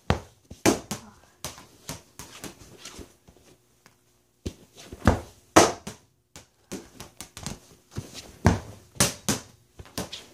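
Plastic play ball being kicked and bouncing on a hardwood floor: irregular sharp thuds, with a short pause a little before the middle and the loudest hits in the second half.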